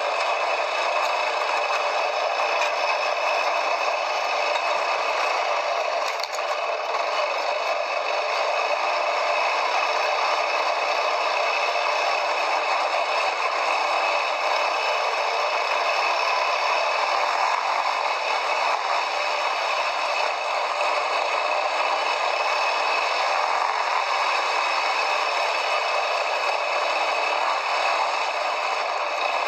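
Steady rattling and clattering noise of a quad bike riding off-road, with no clear engine note.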